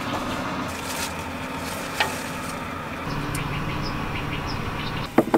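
Steady low mechanical hum, with a single click about two seconds in and a few sharp clicks near the end.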